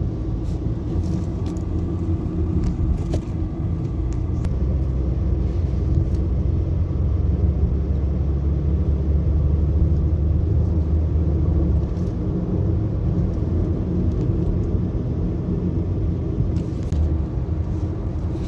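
Nissan Sentra on a road test: a steady low engine and road rumble that grows heavier for several seconds in the middle. The car is running after a cylinder-2 misfire was cured by replacing a spark plug whose electrode tip had broken off.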